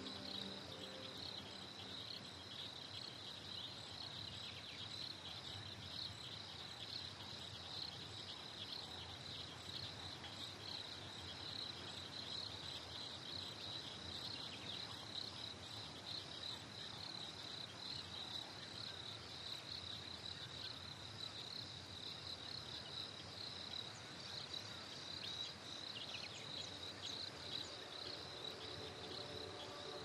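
Crickets chirping in a steady high-pitched chorus.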